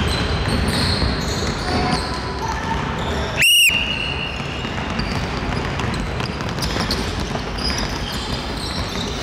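Basketballs bouncing and thudding on a gym floor as children play at several baskets. About three and a half seconds in, one short, high-pitched blast on a coach's whistle: the signal for the children to stop and run back to their places.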